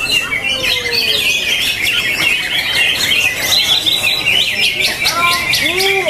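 Cucak ijo (green leafbird) singing: a rapid, unbroken stream of high chirps and trills.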